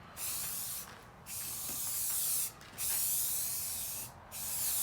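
Aerosol spray paint can (Rust-Oleum 2X) hissing as paint is sprayed in about four passes of roughly a second each, with short breaks between them.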